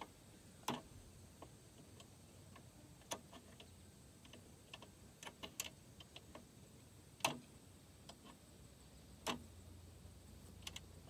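Scattered sharp clicks and knocks, about a dozen and at uneven gaps, from hands working at a wheel on a riding mower deck to get it off. The loudest knock comes a little past halfway.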